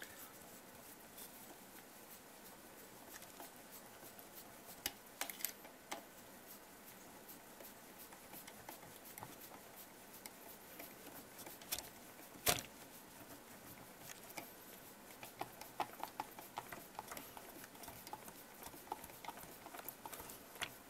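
Faint, scattered small clicks and taps of a metal hex screwdriver turning a small bolt into an RC crawler's chassis and suspension bracket. There is one sharper knock about twelve seconds in and a quicker run of clicks near the end.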